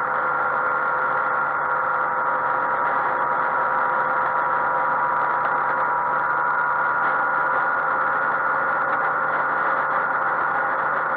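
Yamaha XMAX 125 scooter's single-cylinder four-stroke engine running steadily at constant motorway cruising speed, an even drone with a steady whine over it, mixed with wind and road noise on the on-board microphone.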